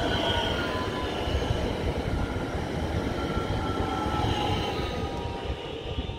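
Regional electric multiple unit running past along the platform track: a steady rumble of wheels on rail with faint whining tones, fading near the end as the last car goes by.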